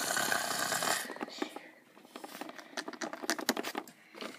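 Small plastic toy figures being picked up and set down on a plastic playset, making light clicks and taps. The first second is a rush of noise.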